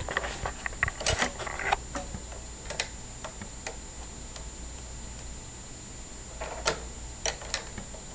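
Irregular small clicks and taps of a laptop's plastic and metal parts being handled as it is taken apart to remove its drive, a cluster in the first two seconds and a few more near the end.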